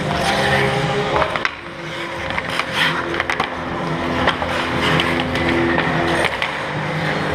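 Ice hockey skate blades scraping and carving on the ice and sticks clacking around the goal, in scattered sharp strokes, over a steady low hum.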